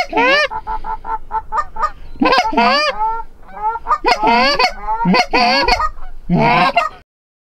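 Geese honking and clucking: a rapid run of short clucks and several loud, long rising-and-falling honks, overlapping one another. The calling cuts off suddenly shortly before the end.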